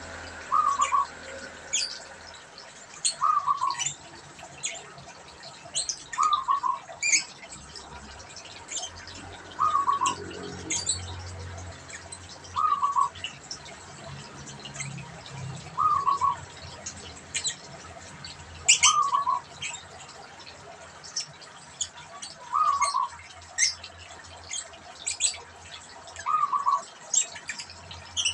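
Zebra dove (perkutut) cooing its short rolling phrase over and over, about every three seconds, a bird in full song. Sharp high chirps of other small birds come in between.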